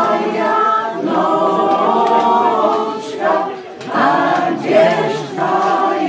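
A mixed choir of older men and women singing together, with a short pause between phrases a little past the middle.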